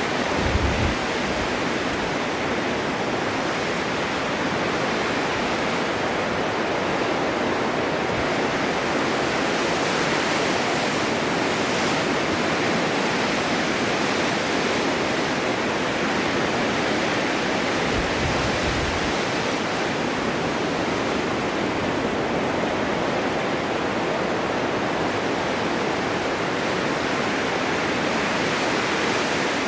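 Steady winter wind blowing, a constant rushing noise, with brief low buffeting rumbles near the start and about eighteen seconds in.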